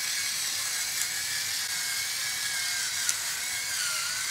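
Battery-powered electric pepper mill grinding peppercorns: a steady small-motor whine over a grinding hiss, its pitch wavering slightly.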